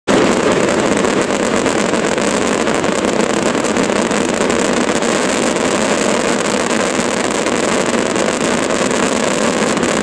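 Fireworks finale barrage: cakes and shells firing so densely that the bangs and crackle merge into one loud, continuous wall of noise with no separate reports. It cuts in abruptly at the start.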